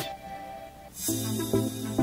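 Background music: one passage dies away, and about a second in a new one starts with held notes over a steady bass.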